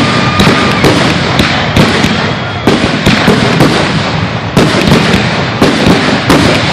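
Aerial fireworks bursting in quick succession, two or three loud bangs a second over continuous crackling, with a brief whistle near the start.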